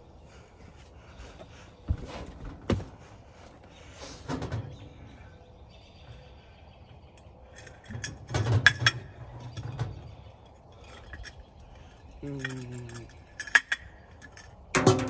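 Scattered knocks and clinks, a few sharp ones seconds apart, from hard plastic parts being handled at a portable twin-tub washer and spin dryer.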